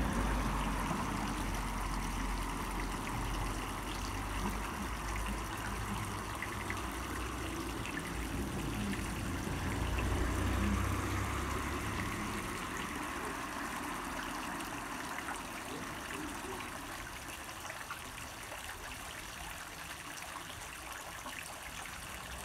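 Several water jets of a round stone fountain splashing steadily into its basin. A low rumble runs under it through the first half, swelling about halfway through, then fades out.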